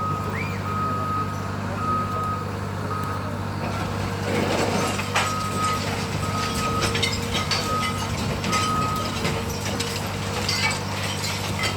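Heavy diesel machinery running steadily while a reversing alarm beeps about once a second, pausing for a couple of seconds near the middle. From about four seconds in, crunching and knocking of demolition debris joins in.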